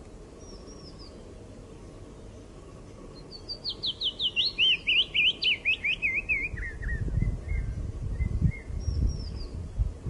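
A small warbler singing one phrase of about a dozen rapid down-slurred notes that steps steadily down in pitch over about three seconds, trailing off into a few softer notes. A few faint high chirps come before and after it. A low rumble sets in about two-thirds of the way through.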